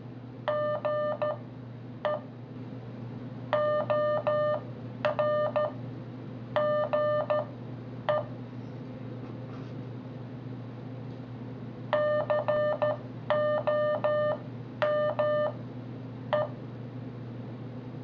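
Morse code (CW) beeps at one steady pitch from the AE Morse tutor app, played through a Motorola Droid phone's speaker: random practice words sent as dits and dahs, with extra space between characters to slow them to about 5 to 8 words a minute. Two words, with a pause of a few seconds between them, over a steady low hum.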